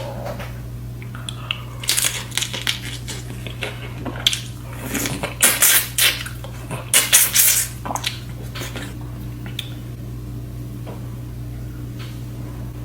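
Close-up eating of seafood: clusters of sharp crackles and clicks, densest between about two and eight seconds in, over a steady low hum.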